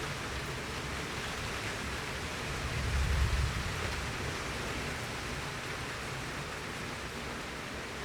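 Heavy, steady downpour of rain falling on a garden. A low rumble swells and fades about three seconds in.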